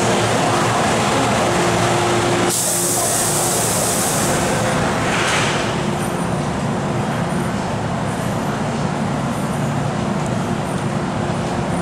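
MTR M-Train electric multiple unit standing at the platform, its equipment humming steadily. About two and a half seconds in, compressed air hisses out suddenly and fades away over about three seconds.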